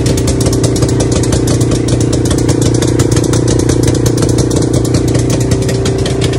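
ATV (quad bike) engine running steadily at idle, close by, with a fast, even putter and no revving.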